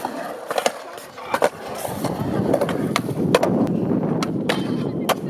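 Skateboard riding in a skatepark: wheels rolling with a steady rumble that grows louder partway through, and several sharp clacks of the board and trucks striking the ground.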